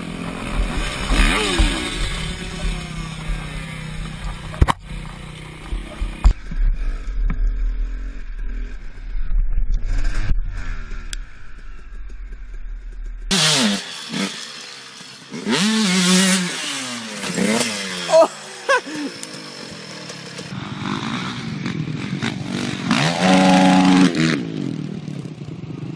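Dirt bike engines revving up and down through the gears across a couple of clips. A few sharp knocks come about five and six seconds in. The engine is at its loudest and highest near the end.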